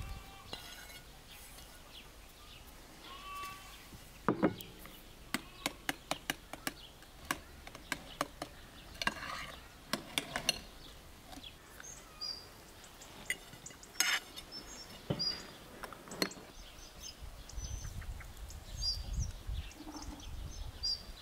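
Irregular clinks and knocks of kitchen utensils against dishes, some ringing briefly, mostly in the first half. Small birds chirp in the second half.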